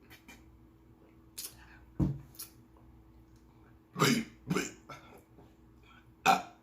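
Loud human burps from drinking carbonated soda: two close together about four seconds in, then another near the end. A short low thump comes about two seconds in.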